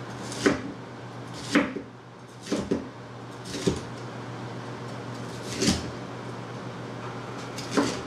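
Chef's knife slicing a green bell pepper into strips on a plastic cutting board, each cut ending in a sharp knock of the blade on the board, about seven knocks at uneven intervals.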